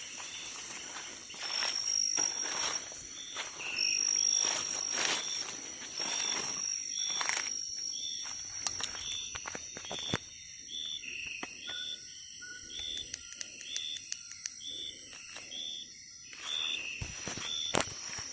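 Rainforest insect chorus: a steady high-pitched insect drone with a short chirp repeating about twice a second. Scattered crackles and rustles, like steps on forest litter, come through it.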